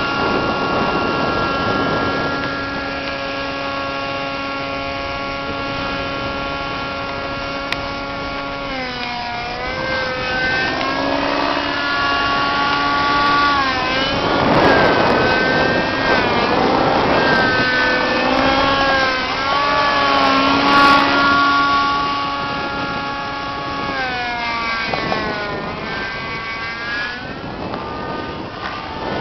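Thunder Tiger Raptor radio-controlled helicopter in aerobatic flight: the small engine's high, steady whine with rotor noise. The pitch sags and recovers several times as the blades take load in manoeuvres. A rushing blade noise swells in the middle.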